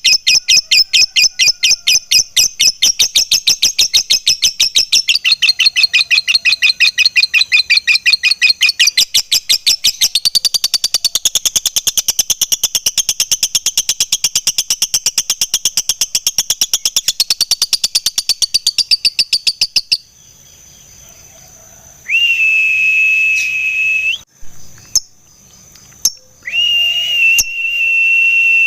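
Lovebird 'ngekek': a long unbroken chattering trill of rapid, shrill, evenly repeated notes that runs for about twenty seconds and then stops. After a short lull come two steady high tones, each about two seconds long.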